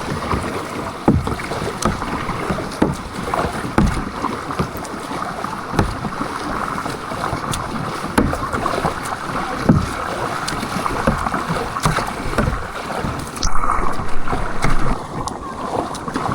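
Canoe moving on a river: steady rush and splash of water around the boat, with irregular knocks.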